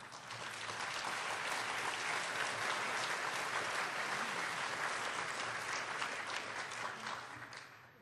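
Audience applauding: many hands clapping together, swelling over the first second and dying away near the end.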